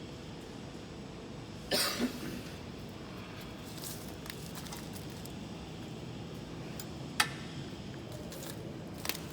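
Steady low background hum, broken by a short rough clatter about two seconds in and a sharp click about seven seconds in, with a fainter click near the end.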